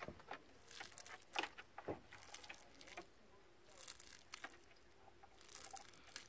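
Hands squeezing and kneading a failed, crumbly batch of homemade glitter slime, giving faint wet squishing and clicking in short bunches about five times. The mixture has not come together into slime.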